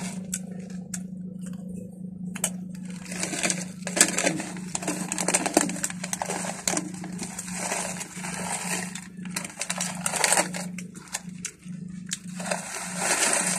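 Crinkling of a metallised plastic corn-chip bag being handled, tipped and shaken to empty it, in irregular bursts that start about two and a half seconds in, mixed with crunching of corn chips being chewed. A steady low hum sits underneath.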